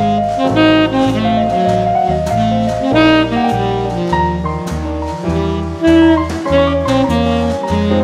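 Jazz instrumental: a saxophone-led melody over a bass line that steps from note to note, with drums keeping time.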